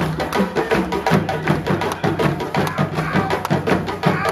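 West African drum ensemble of djembes and dunun bass drums playing live, with a dense, driving rhythm of sharp hand strokes over repeating low drum tones.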